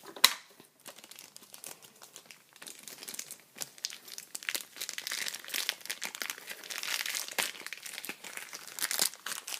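Plastic sticker packet crinkling as it is handled and opened, the rustling getting busier from about two and a half seconds in; a single sharp click just after the start.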